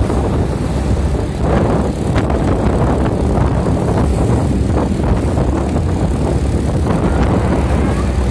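A vehicle on the move: a steady, loud low rumble of engine and road noise.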